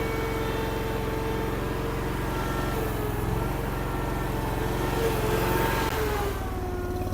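Derette DRT450 mini skid steer running, a steady engine hum with a whining hydraulic tone over it. About six seconds in, the whine falls in pitch and the engine slows.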